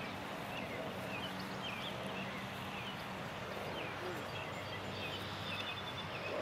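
Outdoor ambience: small birds chirping now and then over a steady low hum.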